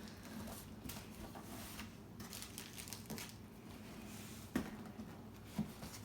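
Plastic and paper packaging crinkling and tearing faintly as a mailed parcel is opened by hand, with two sharper clicks about four and a half and five and a half seconds in.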